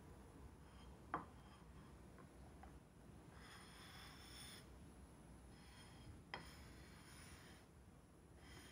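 Near silence: faint room tone, broken by two faint sharp clicks, about a second in and again about six seconds in.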